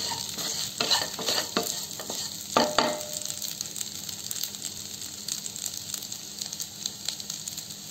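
Idli pieces frying in oil in a pan, sizzling steadily, while a wooden spatula stirs and scrapes them for the first few seconds, with one sharp knock against the pan near the middle of that stirring.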